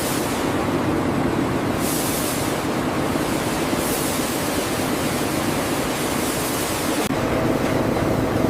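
Steady rumble of factory machinery running, with surges of hiss about two and four seconds in. It changes abruptly about seven seconds in to a similar rumble with a steady hum.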